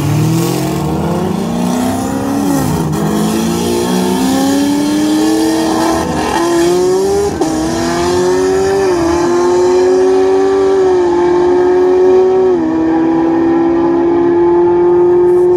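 Twin-turbo race cars, an Audi R8 V10 and a Nissan GT-R, accelerating hard at full throttle down a drag strip. The engine note climbs steadily, dips sharply at each of about four gear shifts, and ends held high near the top of the run.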